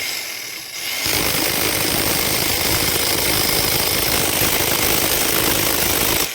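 Electric PR 38 rotary hammer running in drill mode with a loud, rapid, steady hammering. It eases off for about a second at the start, runs again, and cuts out near the end.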